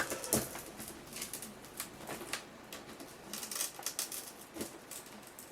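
Light, irregular clicks and scratching of a tablet's plastic and glass parts being handled and pried apart while its screen is lifted.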